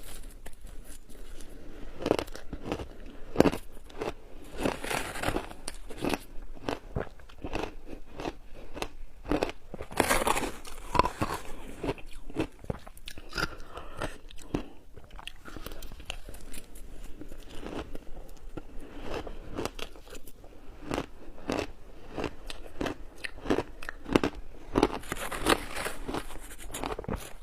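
Close-up crunching and chewing of shaved ice in big bites, the ice crackling and grinding between the teeth in irregular bursts.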